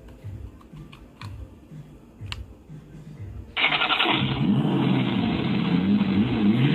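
A Bluetooth speaker playing a recorded engine-start sound: an engine catching and revving with rising and falling pitch, loud and clipped of its treble, from about three and a half seconds in. Before that, faint low thumps at about two a second.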